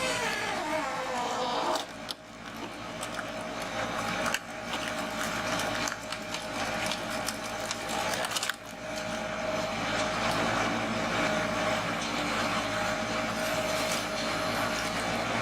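Large wood chipper or tree shredder running: steady, dense machine noise with a falling whine about the first two seconds in, changing abruptly several times, then a steady hum.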